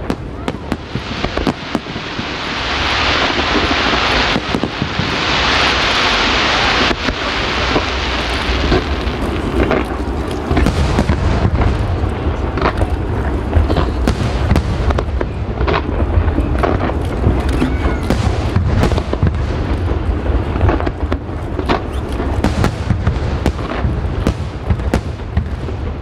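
Aerial fireworks display. For several seconds a dense crackling and hissing of shells bursting fills the air, then from about ten seconds in a rapid string of bangs and booms runs over a steady low rumble.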